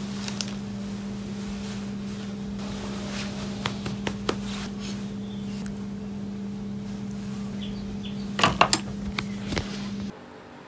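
A steady low hum with a few scattered clicks and a short cluster of louder knocks about eight and a half seconds in; the hum cuts off suddenly near the end.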